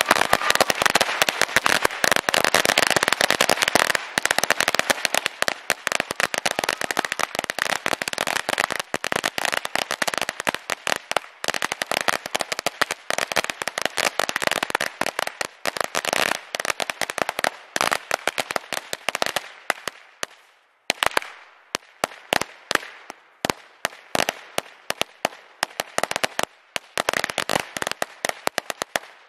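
Ground firework going off in a long, dense run of rapid crackling pops, loudest at the start, thinning out and briefly dying down about twenty seconds in before the pops pick up again.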